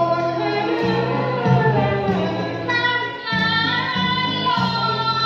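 A woman singing a Thai song into a microphone, amplified, over a backing track with a pulsing bass line. The bass drops out briefly a little past the middle.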